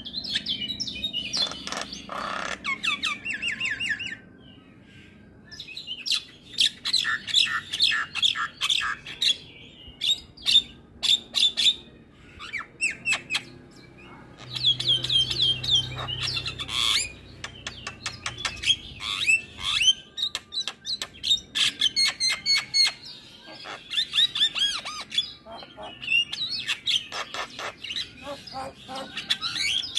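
Javan myna singing: bursts of rapid, repeated chattering notes and whistles, with short pauses between bursts.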